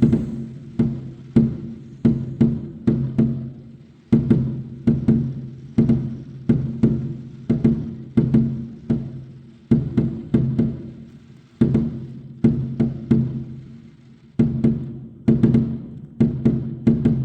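Music with sharp drum-like hits about twice a second over a held low note.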